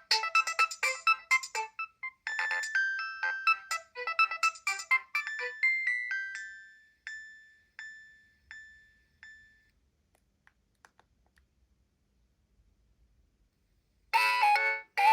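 Nokia 7250i polyphonic ringtone playing a quick melody of short pitched notes. The phrase starts over about two seconds in and ends in a few spaced single notes that fade away. After a few seconds of silence the next ringtone starts, loud, near the end.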